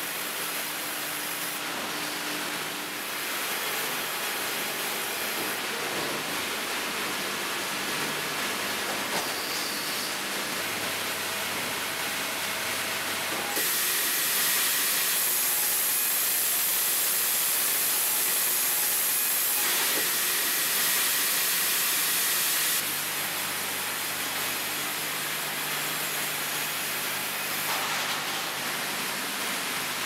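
Sawmill machinery running with a steady hiss and hum of saws and conveyors. For about nine seconds in the middle it grows louder and brighter as the saw blades cut through a pine log.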